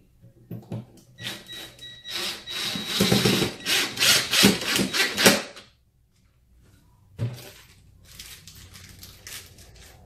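Cordless impact driver with a Phillips bit driving a screw into the table's wooden playing field: motor whine and rapid hammering for about four seconds. A knock follows, then a softer, shorter run near the end.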